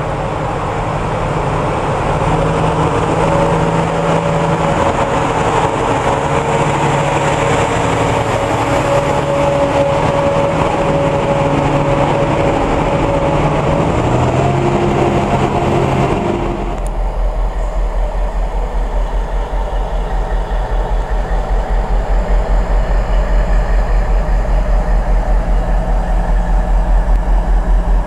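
Diesel engine of a yellow Class DR on-track maintenance machine running as it passes close by, with a steady whine over the engine note. About two-thirds of the way through it cuts abruptly to a freight train of Drax biomass wagons rolling past on a farther track, a low pulsing rumble.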